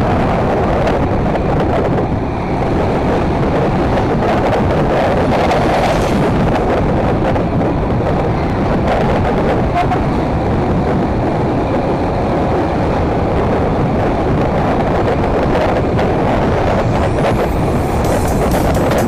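Steady riding noise aboard a moving Yamaha N-Max scooter: a dense, even rush of wind and road noise with the engine beneath.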